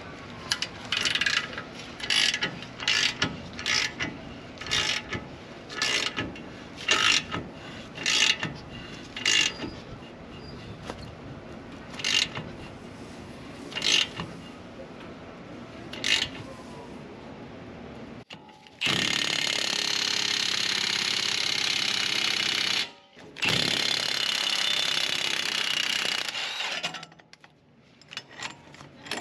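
Single metal-on-metal strikes about once a second on a seized front hub assembly, then two runs of a few seconds each from an impact wrench driving the threaded bar of a hub remover to press the stuck hub out.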